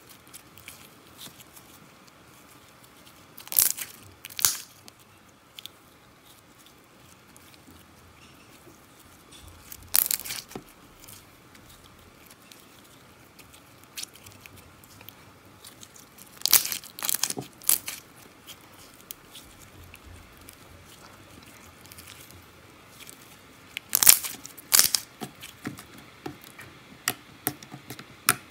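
Homemade glue slime being squeezed, stretched and folded by hand, popping and crackling in short bursts of sharp clicks every few seconds, with a run of smaller clicks near the end.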